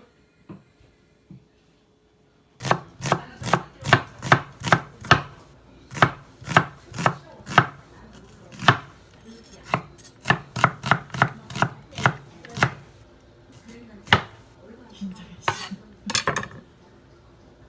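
Kitchen knife chopping on a cutting board: sharp knocks about two to three a second, starting a few seconds in and stopping shortly before the end.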